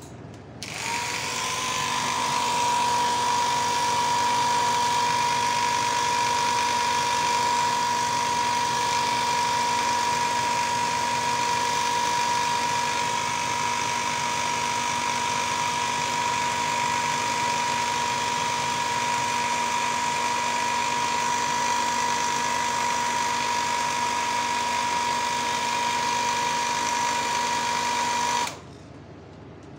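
Small airbrush air compressor running: its motor spins up under a second in, holds a steady high whine over a hiss, and switches off abruptly near the end.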